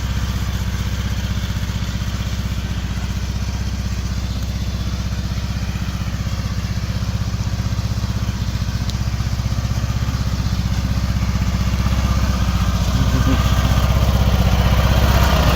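Riding lawn mower's small engine running steadily at low speed, growing a little louder near the end.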